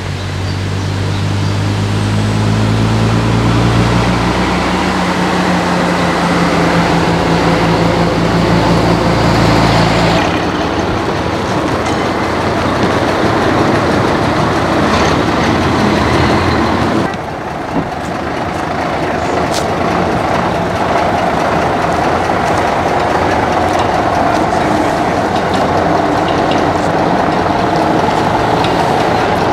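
Old bus engine running as the coach drives slowly across the yard. The sound changes abruptly about ten seconds in and again around seventeen seconds in, each time into a different stretch of vehicle noise.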